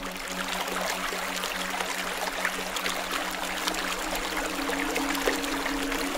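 Running water: a steady rushing, trickling stream with fine crackly detail, over a low steady hum.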